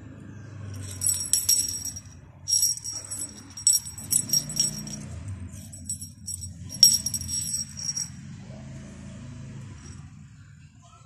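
Small metal bell on a feather wand cat toy jingling in several short bursts as a cat bites and bats at the toy, falling still about two-thirds of the way through.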